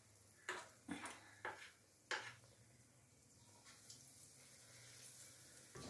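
Four light taps of a spoon against a metal karahi as spoonfuls of jaggery fritter batter go into the oil, then a faint, slowly growing hiss of the batter frying. The flame under the karahi is low, so the oil is only moderately hot.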